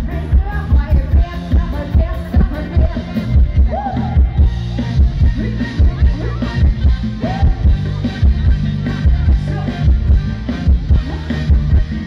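Live stage band playing a fast dance tune through a loud PA, with a heavy bass drum beating about twice a second and a singer's voice gliding over it.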